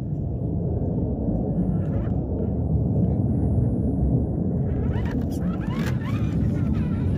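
Wind buffeting the microphone, a heavy steady low rumble. Over the last couple of seconds the Element RC Enduro Sendero HD crawler's electric motor and gears whine, rising and falling in pitch as it crawls over rock.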